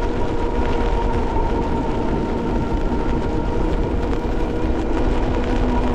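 Ariel Rider Grizzly e-bike running at a steady cruising speed on a wet road: a steady electric motor whine over tyre and road noise, with wind rumbling on the helmet microphone.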